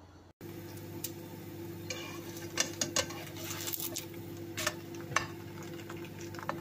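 A slotted spatula scraping and tapping against a non-stick frying pan with a flatbread frying in it, several sharp clicks among the scrapes, over a steady low hum.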